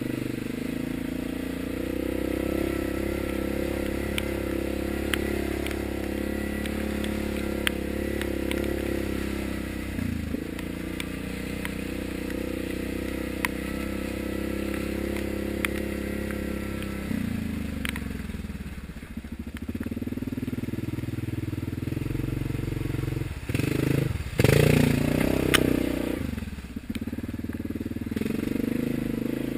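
Yamaha Grizzly ATV's single-cylinder four-stroke engine running under throttle along a muddy rutted trail, easing off briefly twice. A louder, rougher stretch comes a few seconds before the end. Short clicks and knocks sound as the machine jolts over the ruts.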